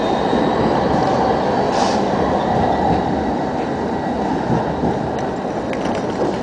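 Electric city tram passing on street rails: a steady low rumble of wheels on track with a faint high steady whine, and a short hiss about two seconds in.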